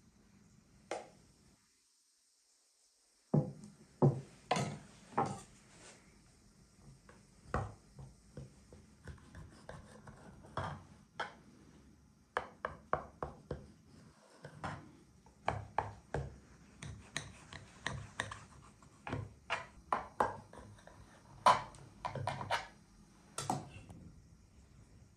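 Metal spoon and knife clinking, tapping and scraping against an enamel pot and a glass baking dish while chocolate glaze is spooned and spread over a cake: an irregular run of sharp clicks and knocks.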